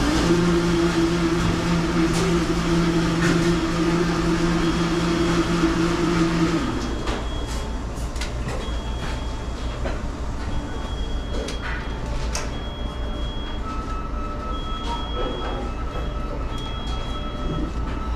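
Fast-food restaurant kitchen noise: a steady machine hum that stops about six and a half seconds in, then short high electronic beeps from kitchen equipment repeating every second or two. A second steady tone joins late on, with scattered clatter over a constant low background rumble.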